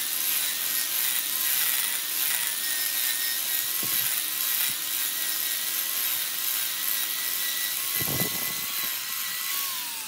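Angle grinder running steadily, its disc grinding the end of a burl wood and epoxy vase, with a dull knock about eight seconds in. Near the end the motor's whine falls in pitch as it winds down.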